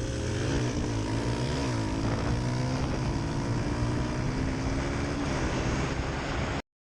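Small single-cylinder dirt bike engine running, its revs rising and falling twice in the first couple of seconds and then holding fairly steady; the sound cuts off suddenly near the end.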